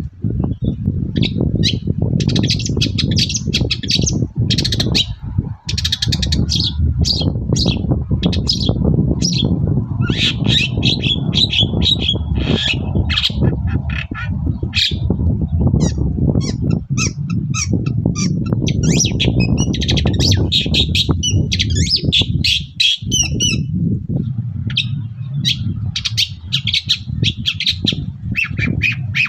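Long-tailed shrike (cendet) singing in rapid runs of harsh, squawking and chirping notes with short pauses, over a steady low rumble.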